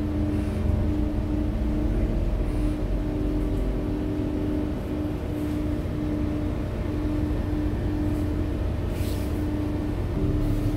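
Heuliez GX 327 city bus heard from inside the passenger cabin: steady low engine rumble with a hum that cuts in and out about once a second.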